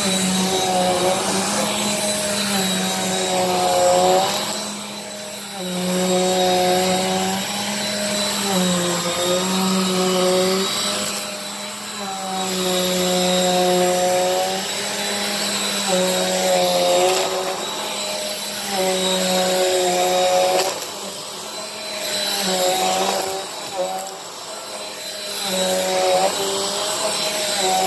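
Bissell PowerForce Compact upright vacuum cleaner running on carpet while picking up a heavy mess of debris. Its motor whine shifts in pitch every second or two as the vacuum is pushed over the carpet, with a few brief dips in loudness.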